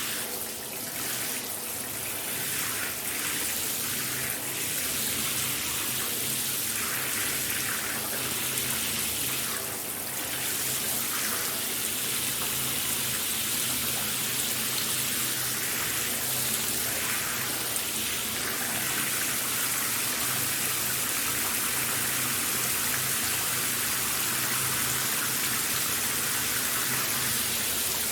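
Shower running: a steady hiss of water spray, with the spatter shifting and splashing unevenly for the first dozen seconds or so, then settling into an even flow.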